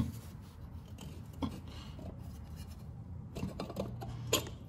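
Light clicks and faint scraping of a clutch release fork and its steel retaining spring being worked onto the pivot pin inside a manual gearbox bell housing. There is a lone click about a second and a half in, and a cluster of small clicks near the end as the spring is seated.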